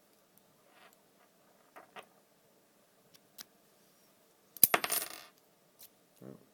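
A few faint metal clicks, then a brief, loud metallic clatter about two-thirds of the way through: a small padlock and its key being handled.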